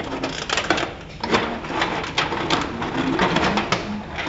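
Aluminium foil crinkling and crackling in quick, irregular snaps as it is peeled back off a baking dish.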